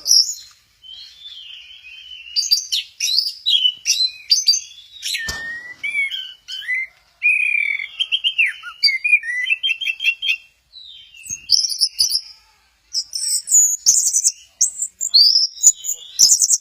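Orange-headed thrush (anis merah) singing a rapid, varied song of whistled phrases and fast trills, broken by short pauses. A single thump sounds about five seconds in.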